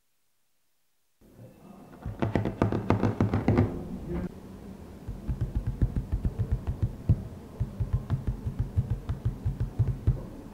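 A rapid run of light knocks and taps, like fingers patting across a tabletop, starting about two seconds in and settling into about five taps a second: the sound effect for a hand crawling along a table.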